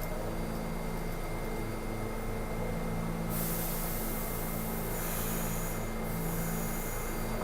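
New York City subway station platform sound: a steady hum made of several low tones, joined about three seconds in by three bursts of high hiss, one after another.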